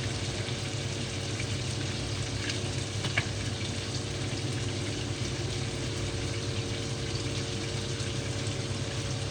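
A pot of tomato and fish sauce cooking on the stove, giving a steady sizzling hiss with a few small crackles and one sharper click about three seconds in, over a steady low hum.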